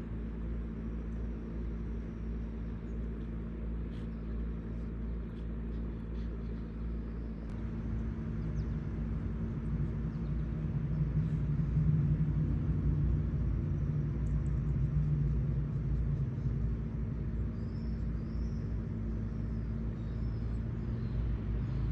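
Steady low mechanical rumble with a constant hum, like an engine running at a distance, swelling louder from about eight seconds in and easing back near the end.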